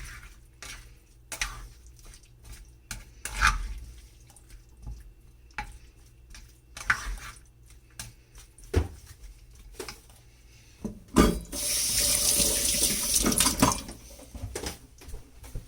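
Scattered light clicks and knocks of kitchen utensils and dishes, then a kitchen tap running into the sink for about two and a half seconds near the end.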